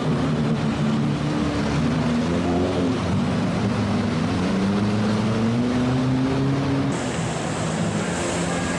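Lada Niva's engine revving hard as it ploughs through deep mud, wheels churning and throwing mud, its pitch rising and falling with the throttle. About seven seconds in the sound changes abruptly to another Niva's engine running as it climbs a rutted mud track.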